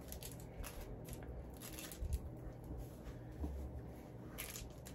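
Plastic candy wrappers rustling and crinkling as they are handled and opened, with a sharper crackle near the end and a couple of faint low bumps.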